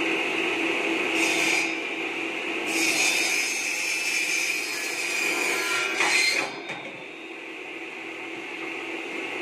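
Mini bamboo-cutting machine: a 1/2 hp low-speed electric motor driving a 12-inch circular saw blade, running with a steady hum and whine. The blade cuts through bamboo briefly about a second in, then in a longer cut from about three seconds in that stops a little past six seconds, after which the blade spins free.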